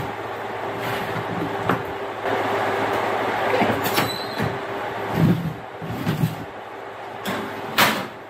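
A wooden spoon stirring and scraping chopped vegetables around a metal sheet pan, with a sharp clack about four seconds in as the spoon is laid down. Near the end comes a loud clunk of the oven door being opened.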